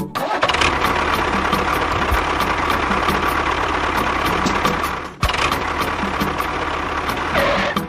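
A motor running steadily, cutting out for a moment about five seconds in before starting again.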